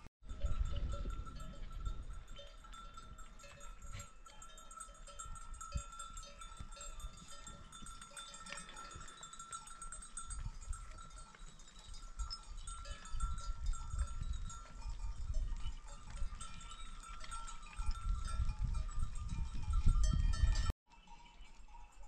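Bells on a flock of goats and sheep ringing steadily, with wind rumbling on the microphone and growing louder near the end. The sound cuts off abruptly shortly before the end.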